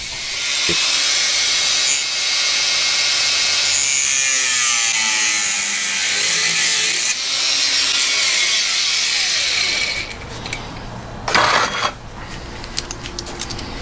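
Power tool cutting through a steel clamp: a steady, high-pitched cutting noise for about ten seconds that stops, followed by a short metallic knock.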